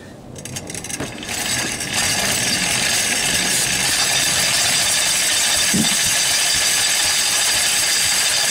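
Old stationary engine driving a cast-iron paint mill through a flat belt: the machinery spins up over the first two seconds, then runs with a loud, steady whirring.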